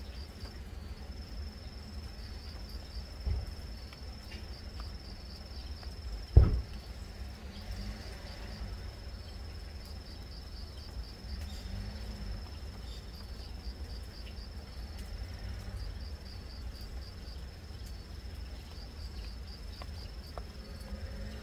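An insect trilling steadily at a high pitch in regular pulsing phrases, over a constant low rumble. A single loud thump about six seconds in, and a softer one about three seconds in.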